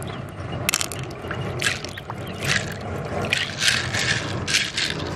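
Loose pearls rattling and clicking against one another and the inside of an open pearl mussel shell as fingers stir through them, in a string of short, uneven bursts.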